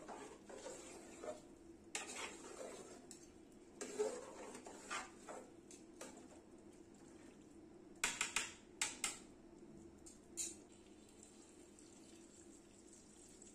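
A metal spoon stirs and scrapes rice and meat around a large aluminium pot, clinking against the pot every second or two. About eight seconds in comes a quick run of four or five sharp metal clinks.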